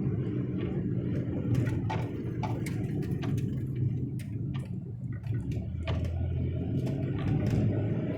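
Road and engine noise inside a moving car's cabin: a steady low rumble with scattered light clicks and ticks at irregular intervals.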